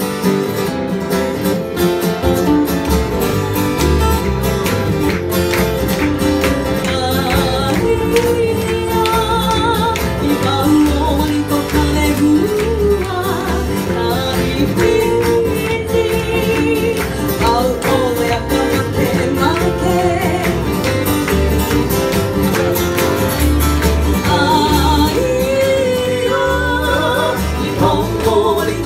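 A Hawaiian song performed live: a wavering solo voice sings over strummed acoustic guitars with a steady beat.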